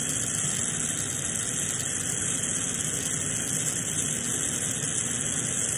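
Glassblowing bench torch flame burning with a steady, even rushing noise.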